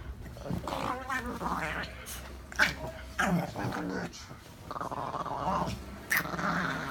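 Dog growling in play, in four rough bouts of about a second each with short breaks, while it digs and noses at something moving under a duvet.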